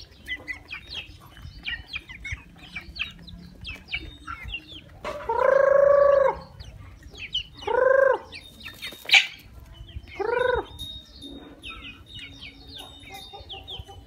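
A flock of young chickens feeding, with constant short high chirps and clucks. Three loud, drawn-out calls stand out in the middle, each rising and then falling. There is a single sharp click just after the second call.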